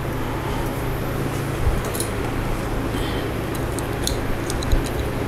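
Faint clicks and rustles of insulated wires being fed into a small plastic Scotch-lock splice connector, over a steady hum.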